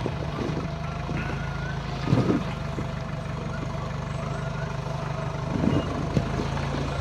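Off-road 4x4's engine running steadily at low revs as it crawls over rough ground, with short knocks and bumps about two seconds in and again near six seconds.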